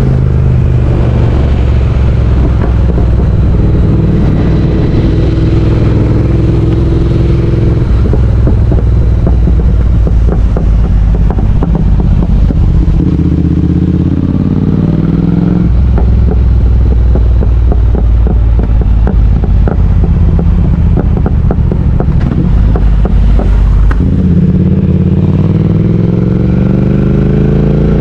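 Triumph Speed Twin 1200's parallel-twin engine running under way, with wind noise on the microphone. The engine note shifts a few times and rises in pitch near the end as the bike accelerates.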